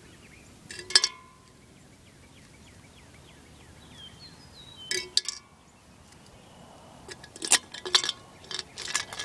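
Pop cans and rocks clinking as they are picked up and handled on the ground: a sharp clink with a brief ring about a second in, another pair around five seconds, and a quick run of clinks and knocks in the last two seconds.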